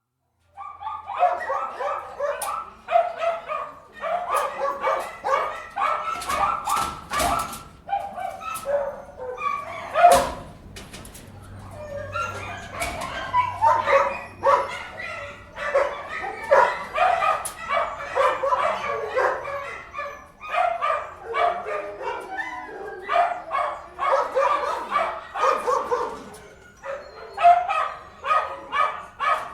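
Many dogs barking and yipping at once in an indoor kennel, rapid and overlapping with brief lulls, with a few sharp knocks partway through.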